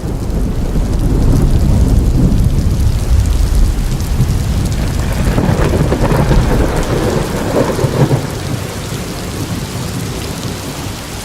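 Thunderstorm: a long rolling rumble of thunder over steady rain, swelling in at the start and easing off in the last few seconds.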